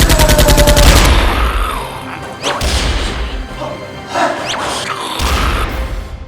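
Dramatic action music laid with sound effects: a rapid burst of even clicks over the first second, then deep booms about two and a half seconds in and again near the end, with swishes in between.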